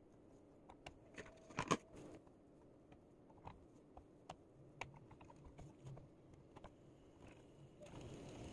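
Raw bacon strips being peeled off a stack and laid by hand into a nonstick frying pan: scattered soft slaps and clicks of the strips and fingers against the pan, with a louder clatter about two seconds in. Near the end a faint steady hiss and low hum come up.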